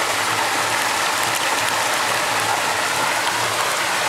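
Steady rush of river water, with faint clicking of gravel being swirled in a gold pan held under the water.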